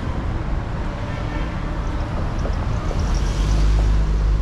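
Street traffic: a motor vehicle's engine running close by over a steady low rumble. It gets louder during the last second or so.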